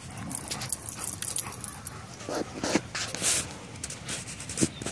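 Golden Pyrenees dogs giving short whimpers and yips, a few seconds apart, amid scuffling on muddy ground.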